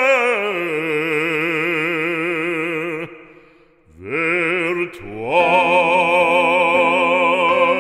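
Operatic voice singing a French hymn-like song with wide vibrato. It holds one long note that fades out about three seconds in, then slides up into another long held note.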